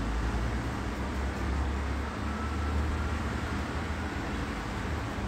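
Steady background hiss with a low rumble underneath and no speech, the rumble strongest in the first few seconds.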